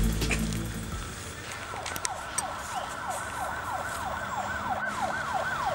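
Police siren yelping, a fast rising-and-falling wail about three times a second, coming in after about a second and a half and growing louder. Background music fades out at the start.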